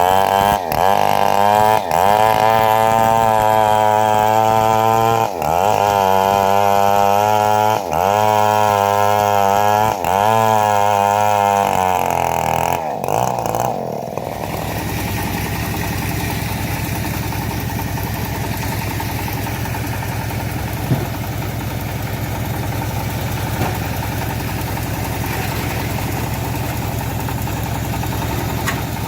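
Engine driving a homemade bandsaw mill, running hard under load as the blade cuts teak, its pitch sagging briefly every couple of seconds. About fourteen seconds in it drops to a lower, steady idle.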